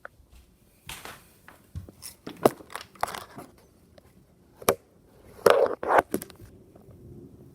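A run of irregular rustles, crinkles and knocks, like something being handled close to the microphone, with the loudest pair about five and a half and six seconds in.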